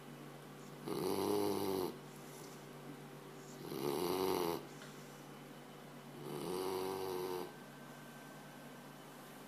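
A Labrador retriever snoring in its sleep, much like a person: three pitched snores, each about a second long, about every two and a half to three seconds, then a pause.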